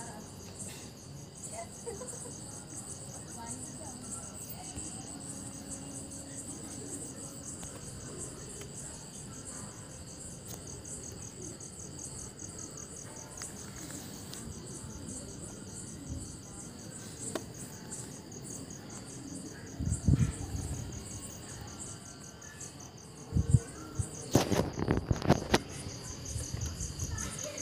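Crickets chirring steadily in a fast, high pulsing trill. A dull thump about twenty seconds in and a quick run of sharp clicks and knocks a few seconds later; no engine is running.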